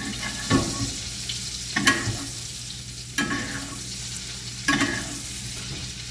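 Butter sizzling in a cast iron skillet as a deer backstrap is basted, with a spoon scraping and clinking against the pan four times, about every second and a half.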